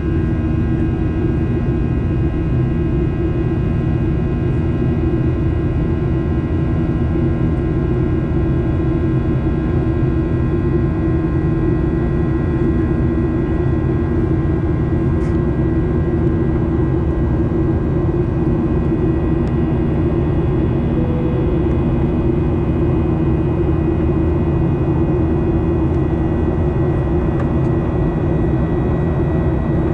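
Boeing 737-800's CFM56-7B jet engines heard from inside the passenger cabin: a steady, even roar of engine and air noise with a constant high whine of fan tones over it.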